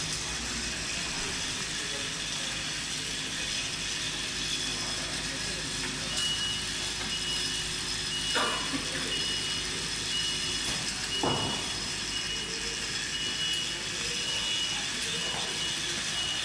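Production-line machinery and a bottle conveyor running with a steady whir and hiss. From about six seconds in, a short high beep repeats about once a second.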